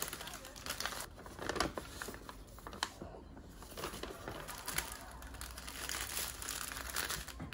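Crinkling and rustling of plastic film and paper handled by hand: clear wrap peeled off a rolled paper chart, the paper sheet unfolded, then a bundle of small plastic bags of diamond-painting drills handled, with many irregular sharp crackles.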